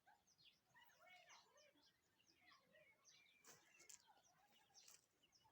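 Faint birdsong: several small birds chirping and twittering in quick, short notes, with a couple of soft rustles a few seconds in.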